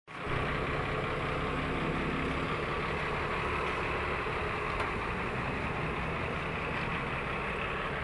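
A heavy vehicle's engine running steadily at idle, a constant low hum with no change in speed.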